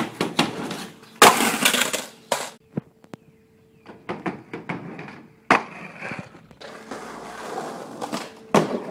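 Skateboard on a wooden porch deck: short stretches of wheels rolling over the boards, broken by sharp clacks of the board popping and slapping down several times.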